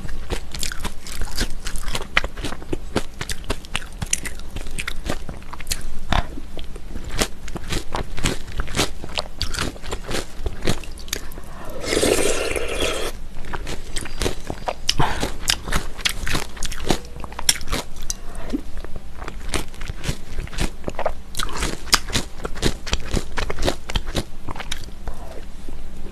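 Close-miked chewing and crunching of mulhoe, Korean cold raw-fish soup with sliced pear, vegetables and somen noodles, many small crunches in a row. About halfway through comes one louder slurp lasting about a second.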